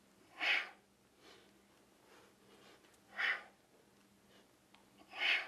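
A man's sharp, forceful exhalations: three short breaths out, roughly every two and a half seconds, with fainter breaths in between. These are the breaths of exertion driving repeated kettlebell clean, squat and press reps.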